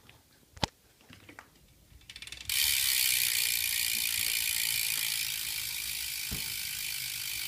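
Stock United BMX rear hub ticking as the rear wheel spins freely: the freewheel pawls start as a fast run of clicks about two seconds in, then become a loud, dense ratchet buzz that fades only slightly. Before it come a few knocks.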